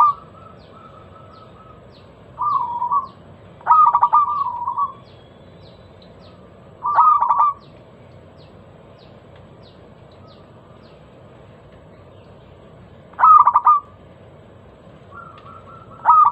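Zebra dove (perkutut) cooing: short phrases of rapid, trilling coo notes, about five phrases spaced a few seconds apart, with a long pause in the middle.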